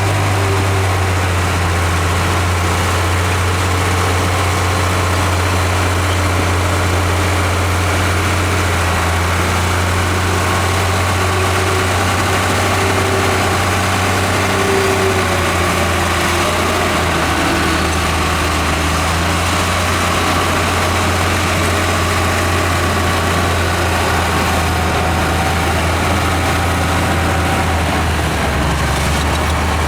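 Diesel engine of heavy earthmoving machinery running steadily with a deep, low hum.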